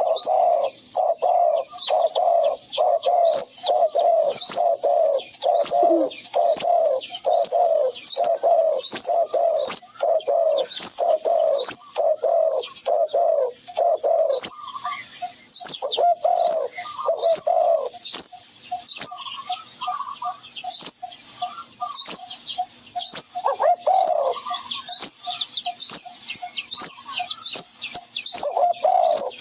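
Birdsong: a fast series of low cooing notes, about two a second, with high short chirps repeating over them. The low notes drop out briefly about halfway through and come back softer for a while.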